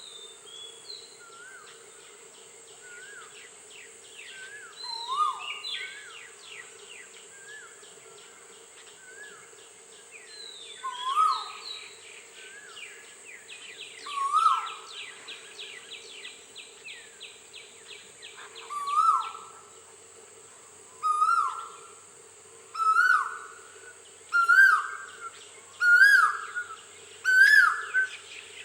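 Male Asian koel calling its rising two-note ko-el, repeated again and again, the calls coming faster and louder in the second half. Smaller birds chirp and trill in the background over a steady insect drone.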